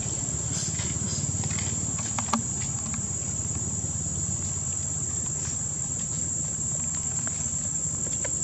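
Steady high-pitched drone of insects over a low rumble, with a brief sharp click a little over two seconds in.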